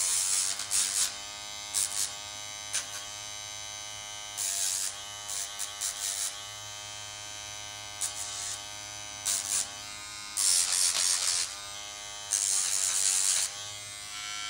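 Electric pet nail grinder running with a steady buzzing whine, broken by repeated louder bursts of grinding hiss, each a fraction of a second to about a second long, as it is pressed to a pet's nails.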